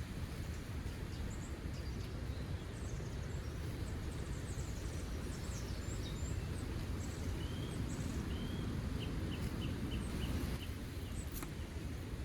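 Steady low wind rumble in a winter forest, with small birds chirping: scattered short high calls and a run of about eight quick chirps around the middle. A few sharp clicks near the end.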